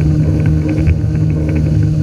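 Yamaha WaveRunner FX HO jet ski's four-stroke engine running steadily under way, a loud, even drone with light ticking over it.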